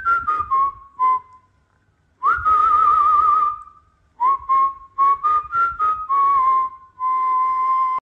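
A person whistling a melody, one clear note that slides between pitches and wavers, in several phrases with short pauses, over a quick rhythmic tapping beat.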